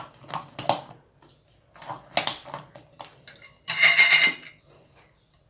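Metal spoon stirring thick semolina batter in a glass bowl, with short clicks and scrapes against the bowl. About four seconds in comes a louder, ringing scrape just under a second long.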